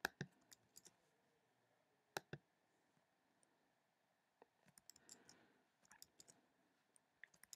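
Faint, scattered computer mouse clicks: a few near the start, a pair about two seconds in, then a quicker run of clicks through the second half.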